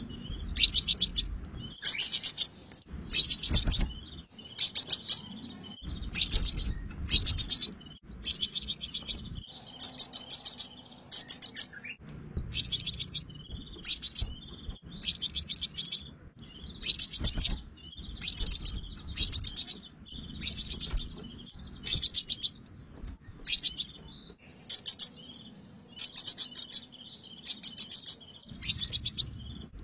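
Sunbird song: rapid, high, chattering trills in phrases of about a second each, repeated over and over with short gaps.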